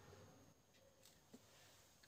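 Near silence: room tone, with one faint click about a second and a half in.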